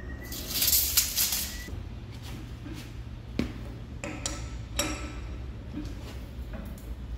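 Steel chuck key working in the jaws of a large lathe chuck: a few sharp metallic clinks with a short ring over a low steady workshop hum. A harsh scraping burst comes near the start.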